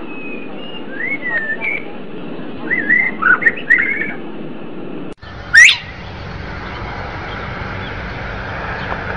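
European goldfinch singing, short twittering and gliding whistled phrases from about a second in to about four seconds. A sudden cut follows, then one loud rising note and a steady background hiss.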